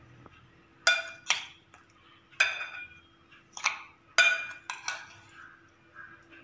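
A metal spoon clinking against a metal vessel while sweet aval (flattened rice with jaggery and coconut) is mixed: about seven sharp, ringing clinks at uneven intervals.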